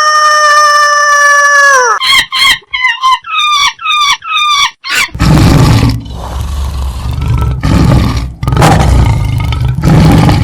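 A sequence of wild animal calls. First a steady, held high-pitched call that ends about two seconds in. Next comes a quick run of about six short, bending yelping notes, and from about halfway, deep, rough calls in three long bouts.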